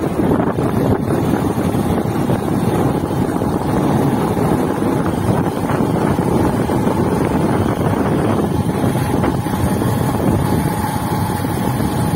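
Motorcycle running at riding speed, its engine rumble mixed with heavy wind noise buffeting the microphone.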